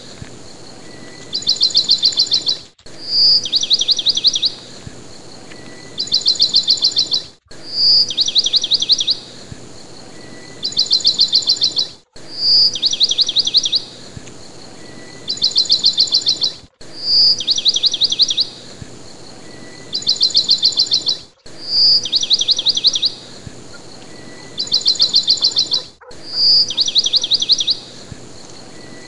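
A looped recording of birdsong: the same phrase, a clear high whistle followed by a rapid high trill and a second trill, repeats about every four and a half seconds, with a brief dropout at each restart of the loop.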